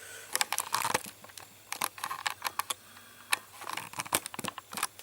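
Leather pieces and tools handled on a workbench: irregular light clicks, taps and rustling in short clusters.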